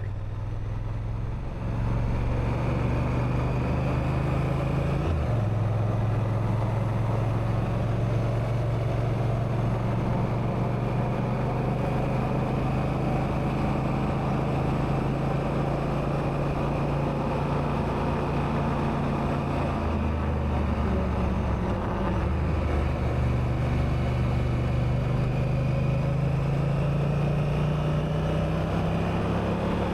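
Honda Africa Twin motorcycle engine running under way, its note stepping with gear changes about five seconds in and again around twenty seconds, then rising steadily as it revs up near the end.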